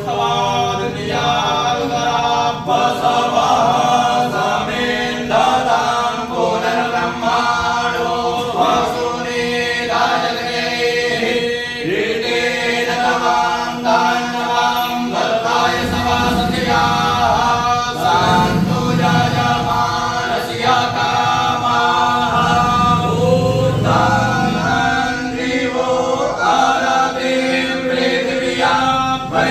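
Voices chanting a Hindu Sanskrit chant, a continuous melodic chant with held notes that change pitch every second or so.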